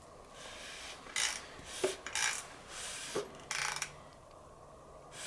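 Hand tools being worked on a bare engine short block: about six short rasping bursts over some three seconds, with two light metal knocks among them.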